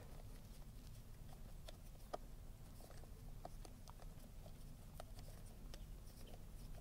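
Faint scattered clicks and light taps, the loudest about two seconds in, as the upper oil plug on an outboard motor's gearbox housing is unscrewed.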